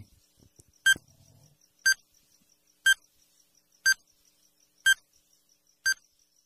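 Countdown timer sound effect: a short electronic beep once a second, six times, with a faint high ticking running between the beeps.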